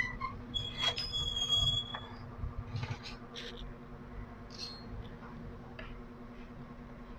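Handling noise from a CRT TV chassis circuit board being turned over on the bench: a sharp click about a second in and a brief squeaky scrape, then a few light taps.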